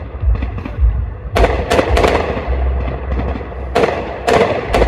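Aerial fireworks going up and bursting: sharp bangs in two quick groups of three, the first about a second and a half in and the second near the end, over a steady low rumble.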